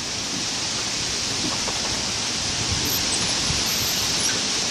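Steady rushing hiss of storm rain and wind, slowly growing a little louder as the wind picks up.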